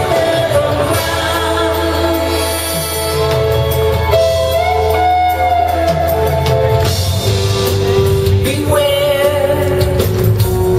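Live performance of a Northern soul song: a lead singer holding sung notes over a full band with drums and guitars.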